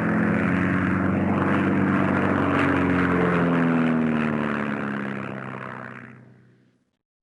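Propeller airplane flying past: an engine drone that swells in, holds loud for about four seconds, then fades away.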